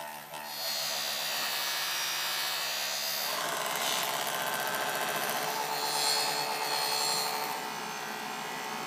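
Bench grinder grinding a metal part of an airsoft gun held against its wheel: a steady grinding noise that starts about half a second in.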